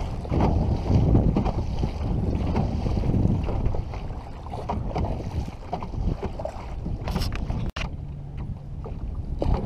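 Wind rumbling on the microphone over waves splashing and slapping against a canoe's hull as it is paddled through choppy water, louder for the first few seconds and then easing.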